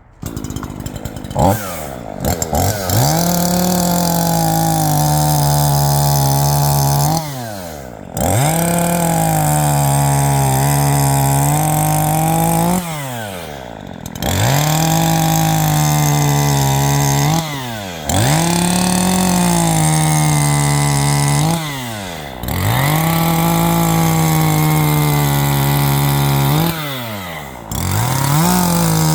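Two-stroke chainsaw cutting a chestnut log: it starts up at the beginning and revs, then runs at high revs in spells of about four seconds, the engine easing off and dropping in pitch briefly between spells, about five times.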